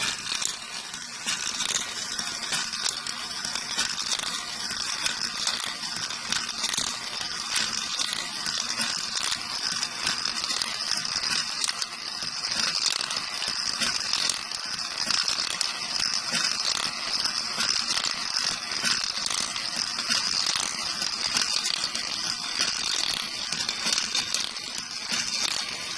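A 3D-printed marble machine running: a steady, dense clatter of small clicks as marbles are pushed up by the plastic pump lifter and roll down the spiral track.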